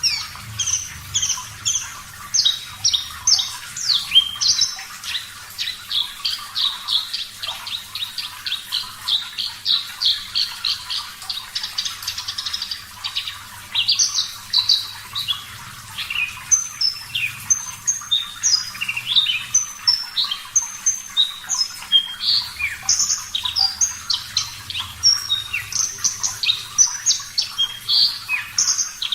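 Horsfield's bush lark (branjangan, Mirafra javanica parva) singing a long continuous song of rapid, sharp chirps and quick whistled slides, several notes a second, with a brief lull about halfway through.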